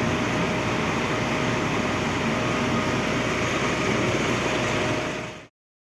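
Truck running, heard as a steady even rushing noise with a faint steady hum. It cuts off abruptly about five and a half seconds in.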